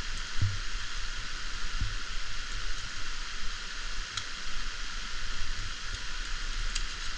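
Steady, even hiss of rainforest background noise, with a low rumble on the microphone and a few faint ticks.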